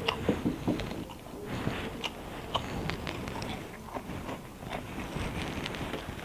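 A person chewing a mouthful of rice and boiled quail eggs, close to the microphone, with irregular short mouth clicks.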